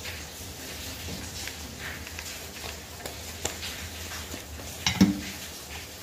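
Small rustles and clicks of EVA foam strips being folded and pressed by hand, with one sharper knock on the hard work surface about five seconds in.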